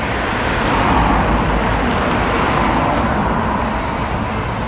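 Road traffic noise: a vehicle passes close by, swelling about a second in and then easing, over a steady low rumble.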